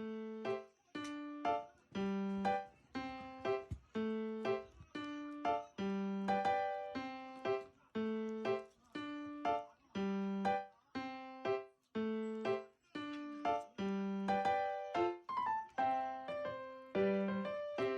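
Background music: a light keyboard tune of struck notes that ring and fade, a few a second, over bass notes alternating at a steady pace.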